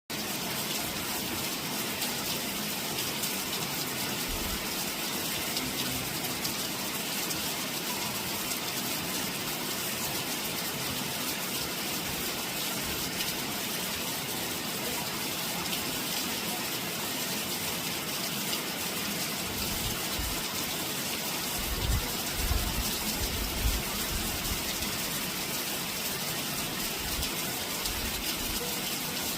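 Steady rain falling at night, an even hiss with no let-up. A few low thumps come about two-thirds of the way through.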